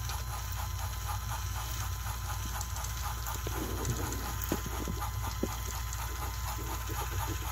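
Battery-powered toy train engines running against each other on plastic track: a steady motor hum with a fast, even clicking from the wheels and gears, and a few sharper knocks in the middle.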